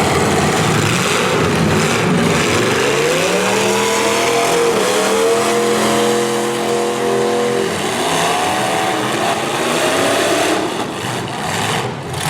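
V8 demolition derby cars running hard in the arena, several engines at once over a constant roar. One engine revs up about three seconds in, holds high revs for a few seconds, then drops back, and revs briefly again soon after.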